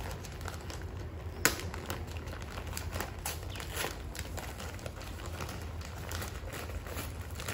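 Gift packaging being unwrapped by hand: crinkling and rustling with scattered small clicks, and one sharper snap about a second and a half in.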